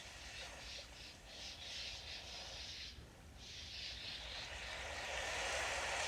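Sea waves washing on the shore: a quick run of short splashes for the first few seconds, a brief lull, then a wave swelling louder toward the end.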